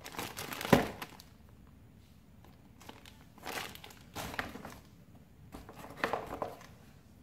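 A plastic bag holding oscilloscope probe leads crinkles in the hands, with a single sharp knock under a second in. Then coiled test leads are rustled and lifted out of a cardboard box in several short bursts of handling.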